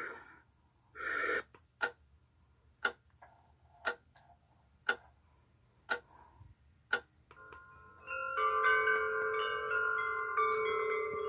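Baby sound machine playing its clock-ticking track: six ticks about a second apart. It then switches to a tinkling chime lullaby melody, which starts a little past halfway through and keeps going.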